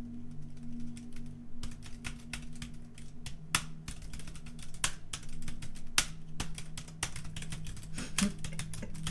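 Typing on a laptop keyboard: fast, irregular key clicks that grow denser after about a second and a half, with a few louder keystrokes standing out. A low steady hum runs underneath.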